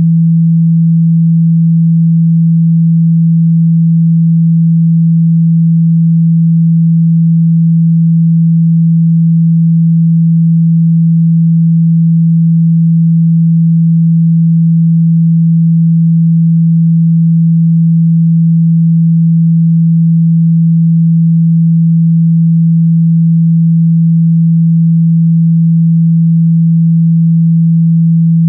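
A steady, low pure tone that never changes in pitch or loudness: a speaker-cleaning tone, played through a phone to shake water and dust out of its speaker.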